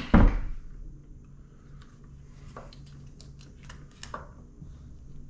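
Hands working a scooter's charging-port wiring connector free: a loud knock about a quarter second in, then a scatter of small plastic clicks and taps.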